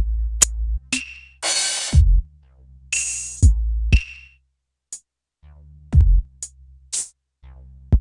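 Programmed drum-machine beat: deep kicks that drop in pitch, long noisy snare hits and short hi-hat ticks over a low bass line, with a break of about a second in the middle.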